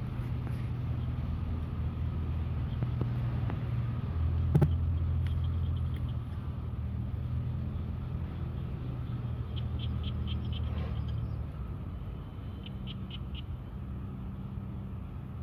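A low, steady mechanical hum, easing off somewhat past the middle. A single sharp click comes about four and a half seconds in, and a few faint quick ticks follow later on.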